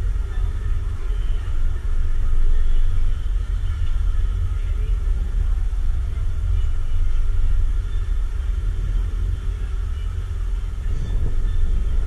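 Steady low rumble of wind buffeting the microphone as an open chairlift moves along its cable, with a faint steady hum underneath.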